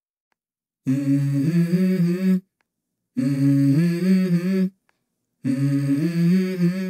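Background music: a wordless hummed melody, three phrases of about a second and a half each with silence between.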